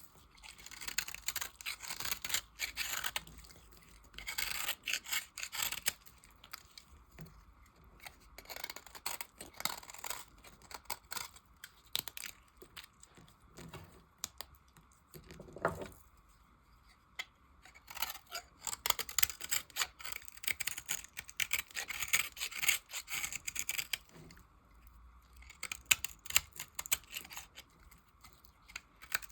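Blade cutting and shaving dry soap: crisp, crackling scrapes in runs of a few seconds, with short pauses between strokes. A brief squeak about halfway through.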